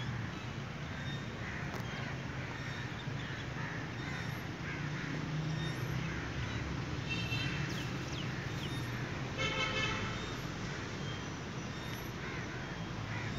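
Steady low rumble, like distant traffic, with a short honking tone about nine and a half seconds in and a fainter one a little before it.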